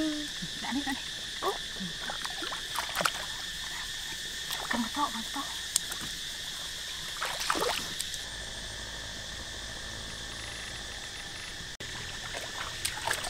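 Steady drone of a chorus of calling frogs and insects. Through the first half, short splashes and sloshes of feet and a trap moving in shallow water.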